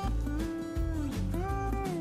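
Background music: a guitar-led track with held, bending notes over a steady bass beat.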